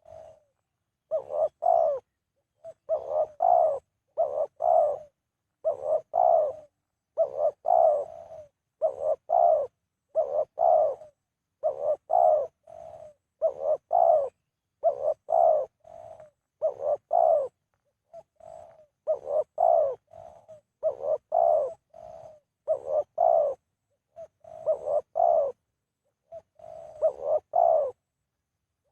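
Dove cooing over and over, in short phrases of two to four notes each repeated about every second and a half, with a couple of brief pauses.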